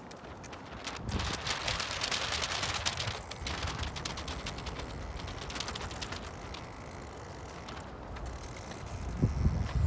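Strong wind on the microphone: a rushing, rumbling noise with scattered small clicks, swelling about a second in and rising again near the end.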